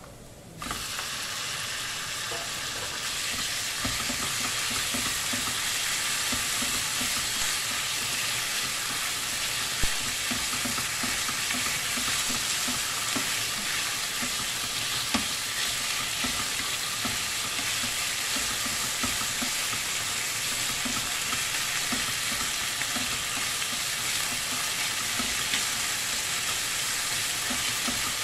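Marinated thin-sliced pork hitting hot oil with garlic and ginger in a frying pan: a loud sizzle starts suddenly about half a second in and keeps on steadily as the meat fries. A wooden spatula stirs and scrapes through it, with a couple of sharper knocks against the pan.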